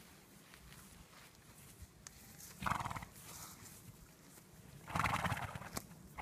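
Dun pony making two short, loud noises, one about two and a half seconds in and a longer one about five seconds in, as it gets up after rolling in the grass.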